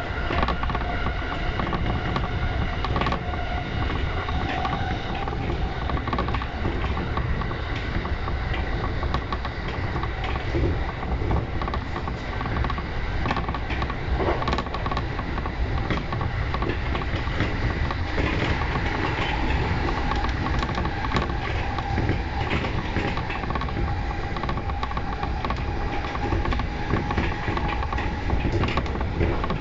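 E235-series electric train running between stations, heard from inside the front car: a steady rumble of wheels on rail with scattered clicks and a faint steady electric whine.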